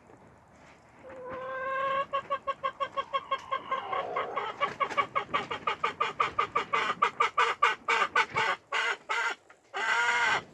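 An animal calling: a fast run of short pitched notes, several a second, that slows near the end and closes with one longer drawn-out call.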